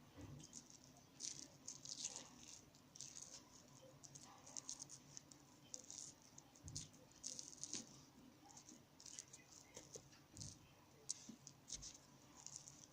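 Faint, irregular wet crackling of hands breaking apart a soggy mass of wet toilet paper mixed with soap, with a few soft low thumps.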